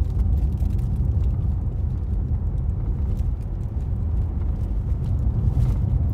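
A steady low rumble with a few faint clicks, and no voice.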